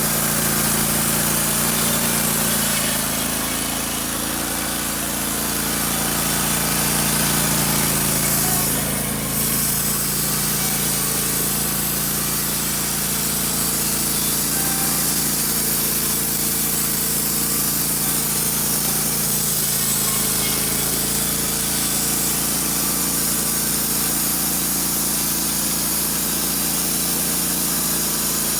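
Wood-Mizer LT15 Wide portable band sawmill running steadily, its engine under load as the band blade cuts lengthwise through a pine log.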